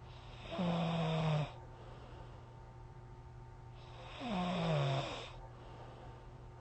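A person snoring: two loud snores about three and a half seconds apart, each about a second long, the second one sliding down in pitch.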